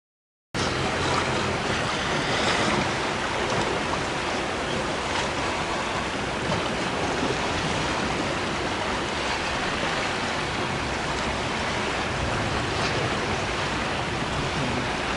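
Steady rush of sea waves washing against a rocky shore, with wind.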